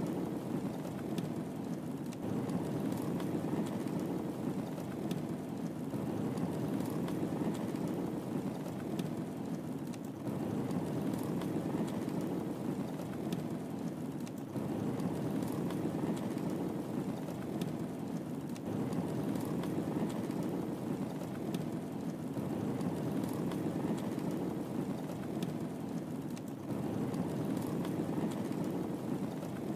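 Wood fire burning in a fireplace: a steady low rush of flame with small crackles and pops scattered through it.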